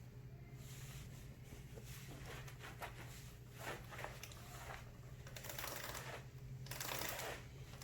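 A cloth towel rubbing and wiping a motorcycle wheel rim dry, a run of irregular swishes that get louder and longer in the second half, over a steady low hum.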